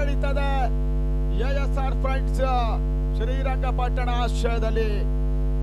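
A song with a gliding, melodic singing voice, heard over several steady humming tones.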